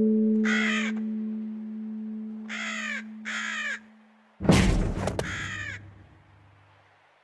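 Cartoon sound effects: a held low gong-like note fades slowly under three short, harsh, caw-like calls. Then a loud sudden thud about four and a half seconds in rings out and dies away.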